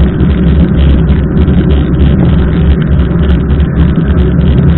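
Loud, steady wind rumble on the microphone of a camera on a bicycle being ridden through heavy rain, with the hiss of rain and wet road under it.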